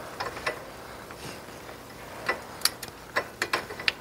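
Sharp, irregular metal clicks and taps from a hand wrench being worked on a tight bearing-cap screw on a Brunswick A2 pinsetter's deck lift shaft. A few come early, then a quicker scatter of clicks through the second half.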